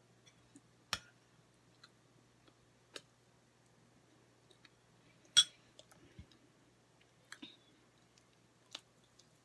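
Eating sounds: a scattering of short, sharp clicks and taps a second or two apart, the loudest about five seconds in, over a faint steady low hum.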